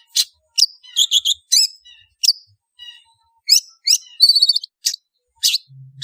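Long-tailed shrike calling: a run of short, sharp high notes, many falling in pitch, some in quick clusters of three or four, with brief gaps between.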